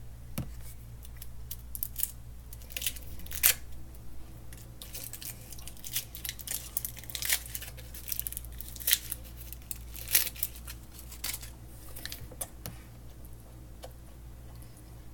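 Candy wrapper crinkling and tearing as it is unwrapped by hand, in irregular sharp crackles, the loudest around three and a half, nine and ten seconds in.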